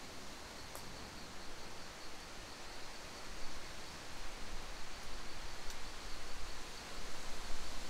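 Outdoor ambience with wind on the microphone, the low gusts growing stronger over the last few seconds, and a faint, steady high-pitched trill in the background. A couple of small clicks.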